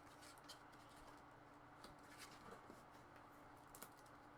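Near silence: a faint steady hum with a few soft clicks and taps of toy packaging being handled.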